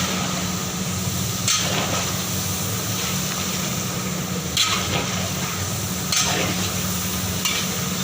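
Beef frying and sizzling in a large cooking pot, stirred with a big ladle whose scraping strokes come about every second and a half, over a steady low rumble.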